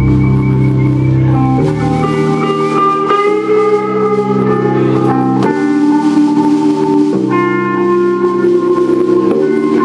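Band music played live: held chords with a guitar-like sound, changing every one to two seconds.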